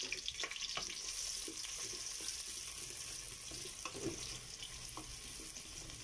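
Sliced onion and garlic sizzling in hot oil in an aluminium pot: a steady frying hiss with scattered crackling pops. About four seconds in, a wooden spatula starts stirring them, knocking and scraping against the pot.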